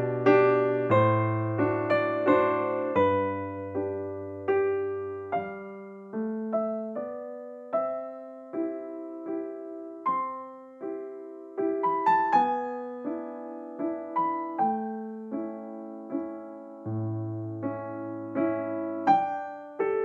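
Background piano music: a slow melody of single notes, each fading after it is struck, over low bass notes.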